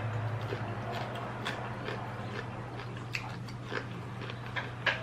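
Close-miked eating sounds: a person chewing and biting seafood, with scattered small wet clicks and smacks over a steady low hum.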